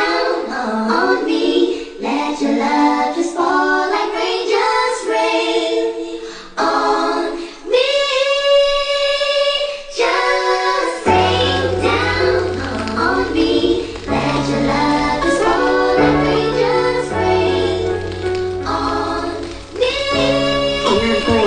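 Song intro: a sung vocal melody over music, with a deep bass line coming in about halfway through.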